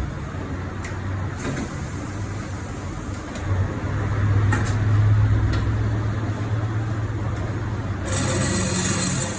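Steady low mechanical hum that swells about a third of the way in and eases off, with a high hissing rush starting near the end.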